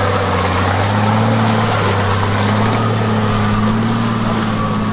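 Off-road vehicle's engine running steadily at an even pitch.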